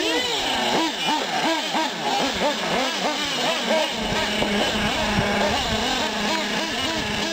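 Several 1/8-scale nitro RC trucks' small two-stroke glow engines running around the track, each whining up and down in pitch as it revs and passes. About four seconds in, a steady low hum starts up close by.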